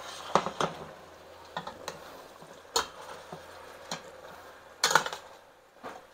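Metal spoon stirring chicken pieces in simmering broth in a stainless-steel pot, scraping and clinking against the pot's side in irregular knocks. The loudest clinks come near the start, about three seconds in, and in a quick cluster about five seconds in.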